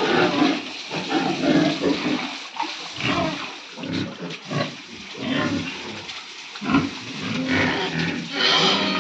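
Pigs grunting and squealing in a string of irregular calls, with a louder, shriller squeal near the end.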